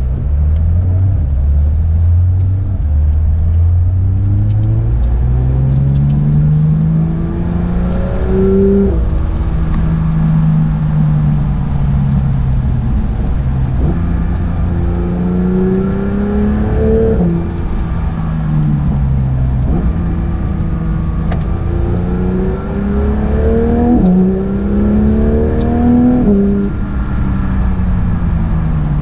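Porsche 911 GT3 (992) engine pulling hard through the gears: the note climbs and drops sharply at each quick PDK upshift, several times, with spells of falling revs in between as the car slows for corners.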